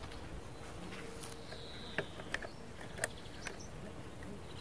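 Quiet summer outdoor ambience with insects buzzing, a short high note about a third of the way in, and a few sharp clicks scattered through it.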